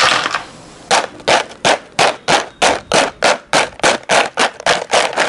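Crisp fried sago sticks rattling in a plastic bowl: a rush as they are tipped in off a perforated ladle, then from about a second in a regular run of dry clattering strokes, about three a second, as the bowl is shaken.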